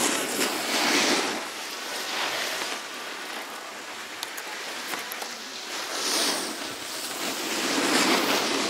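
Snowboard edges scraping and hissing across snow as riders carve turns past, the sound swelling and fading with each turn, loudest about a second in and again near the end.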